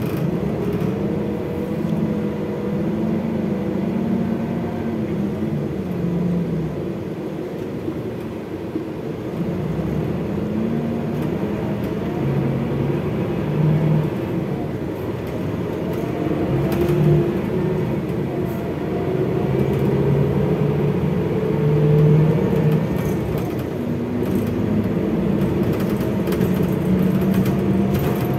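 Scania DC13 six-cylinder diesel engine of a Scania K360IB bus running under way, its pitch rising and falling several times as engine speed changes.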